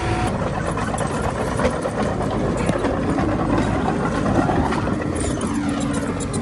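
Heavy diesel engine of earthmoving machinery running steadily, with light knocks now and then.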